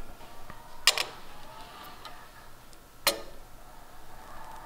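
Two sharp clicks, about two seconds apart, as the rivet gun and steel bucking bar are handled and set against the aluminium panel between rivet-gun bursts.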